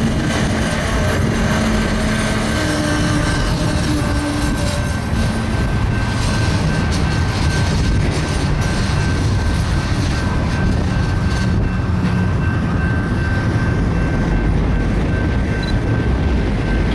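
Freight train of autorack cars rolling past at steady speed: a continuous low rumble of steel wheels on rail. A thin, steady high whine runs over it, and irregular clicks and clanks come through, mostly in the middle.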